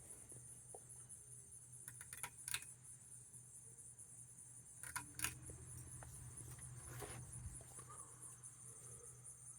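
Windsor and Browne Cambridge ceiling fan running, a faint steady hum with a few light clicks and ticks scattered through it.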